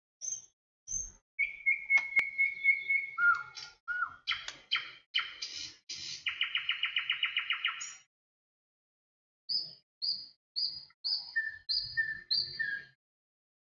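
Songbird singing. It gives a few short high chirps, then a held whistle and a fast trill, and near the end a run of six repeated chirps that each drop in pitch.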